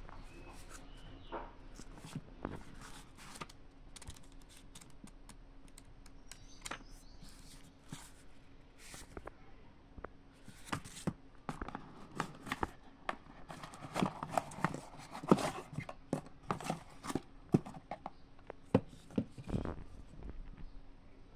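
Hand handling of packaging: a cardboard box, a paper insert and a small plastic radio rustling, tapping and clicking in irregular bursts, busier in the second half, over a faint steady hum.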